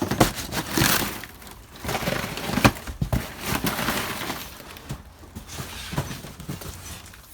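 Old cardboard boxes being shifted and handled: rustling and scraping cardboard with irregular clatter and knocks of hard objects inside, the sharpest knock about two and a half seconds in.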